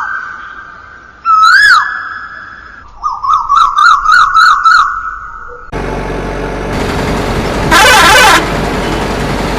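Electronic sound effects from a toy vehicle's speaker: two quick rising-and-falling chirps, then a warbling siren-like tone. At about six seconds a recorded engine-running sound starts and carries on, with a loud burst a couple of seconds later.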